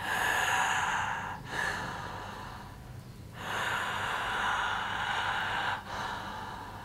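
A person breathing heavily through a wide-open mouth: long, breathy "haaa"-like breaths, about four of them, with the longest and strongest a little past halfway.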